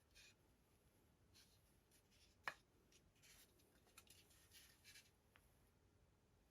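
Faint rustling and handling of small parts or packaging, with a few light taps and one sharp click about two and a half seconds in.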